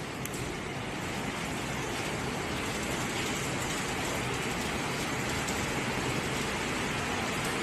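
Motorised aluminium-alloy garage door running, a steady even noise that grows a little louder over the first few seconds.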